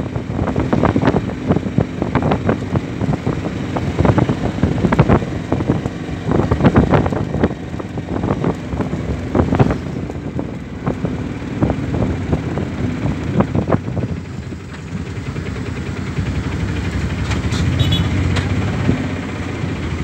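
Auto-rickshaw's small engine running as it drives, heard from inside the open cabin, with many knocks and rattles from the body over the first two-thirds. Near the end the sound settles into a steadier, lower rumble.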